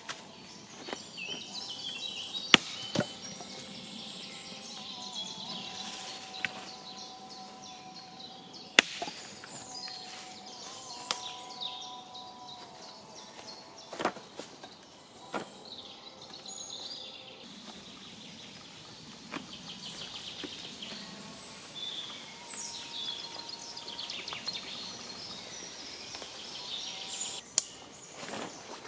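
Woodland birds singing, with occasional sharp knocks as logs and an axe are handled.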